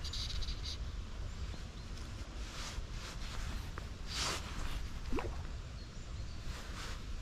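Steady wind rumble on the microphone, with a few short hissing bursts and one quick rising chirp about five seconds in.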